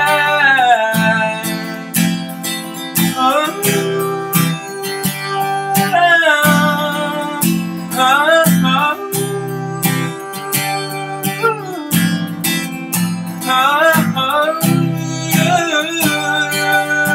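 A man singing with gliding, bending vocal lines over a strummed acoustic guitar.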